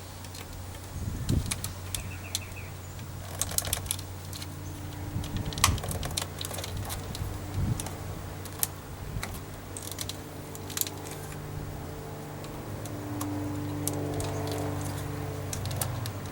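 Scattered clicks and light rattles of plastic door trim and a power window switch panel being handled and pried loose from a Toyota 4Runner door.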